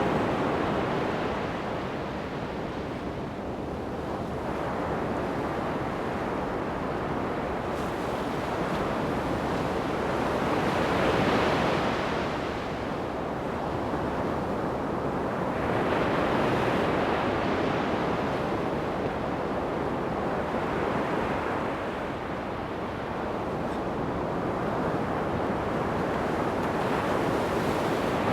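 Ocean surf breaking on a sandy beach: a steady wash of waves that swells as each breaker comes in, about every five seconds, with some wind on the microphone.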